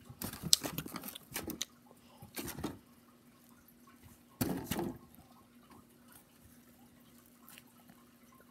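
Short crackly bursts of handling and biting as a cheeseburger is picked up and bitten, three times in the first five seconds, over a faint steady hum.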